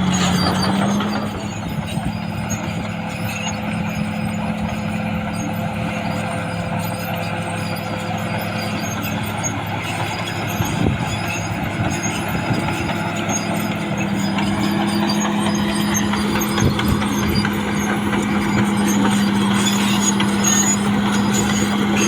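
CAT D6R XL bulldozer's diesel engine running steadily under working load, revs rising just at the start, with a few scattered clanks.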